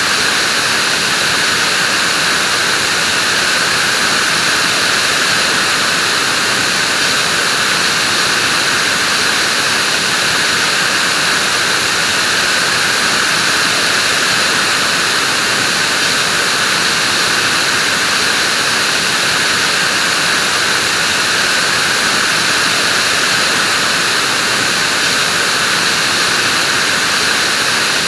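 Vacuum cleaner running steadily: an even, unchanging hiss with no pauses or changes in pitch.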